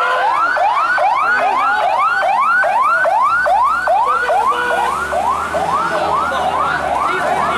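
Fire engine siren in a fast, repeating yelp. Each rising sweep drops off sharply, about two and a half times a second.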